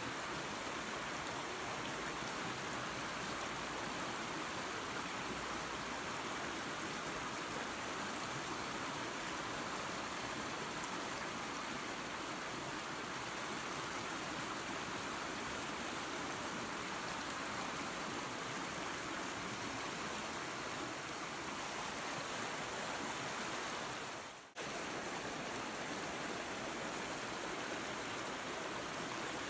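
A waterfall and creek running steadily, with a dense, even rush of water. About three quarters of the way through, the sound fades briefly and cuts straight back in.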